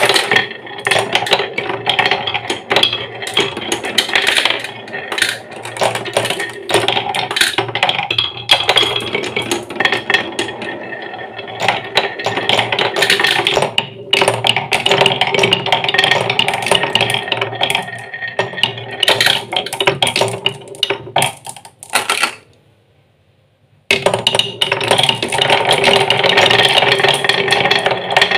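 Glass marbles rolling and clattering along wooden marble-run tracks: a steady rolling hum with many small clicks as they knock against the wood and track joints. The sound drops out for about two seconds a little before the end, then starts again.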